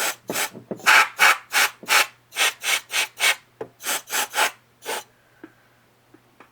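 Compressed-air duster can fired in short hissing puffs, roughly three a second, blowing lint out of a sewing machine's feed dog area; the puffs stop about five seconds in.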